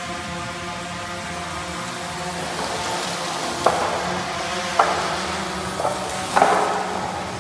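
DJI Phantom quadcopter's propellers whining steadily as it flies low, growing louder and hissier as it comes close. Four sharp knocks in the second half as it strikes broken styrofoam and cardboard on the floor; the last knock is the loudest.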